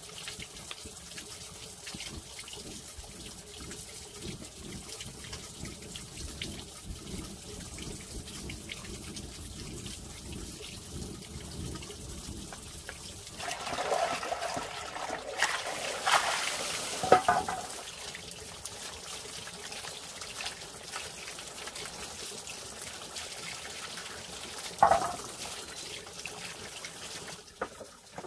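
Water running and trickling steadily, turning louder and splashier for a few seconds around the middle, with a sharp knock among the splashes and one more brief splash near the end.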